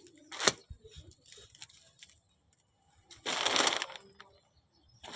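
A single sharp metallic clank, then two short scraping, rustling noises from hand work on the van's front wheel, with a tool and wheel parts being handled.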